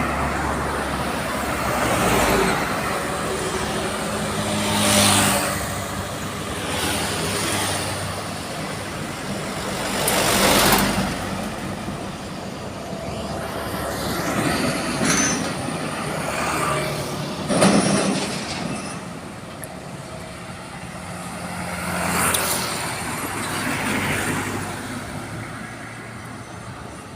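Heavy trucks passing on a road one after another, engine and tyre noise swelling and fading with each pass, about five passes. Some steady low tones run under the traffic.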